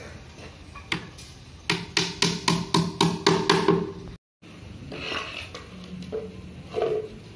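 Hammer nailing a wooden board onto a wooden cage frame: one blow, then a quick run of about nine strikes at about four a second, each with a ringing tone. A few softer knocks follow near the end.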